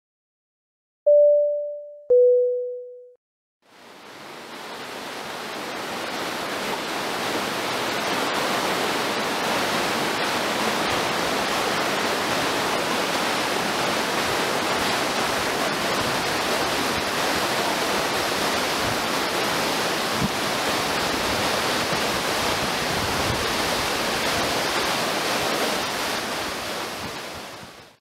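Latourell Falls plunging down a basalt cliff into its pool: a steady, even rush of falling water that fades in and fades out near the end. Before it, two short falling chime notes about a second apart.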